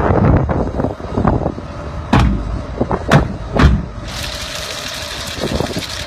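Strong wind buffeting the microphone, a heavy low rumble, with a few sharp knocks between two and four seconds in. About four seconds in a steady high hiss sets in under the rumble.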